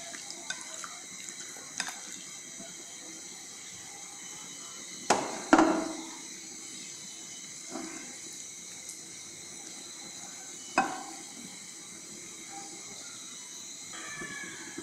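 Steady hiss of a gas stove burner heating oil in a kadai, with a few sharp knocks. The loudest knocks come about five seconds in, and another comes near eleven seconds.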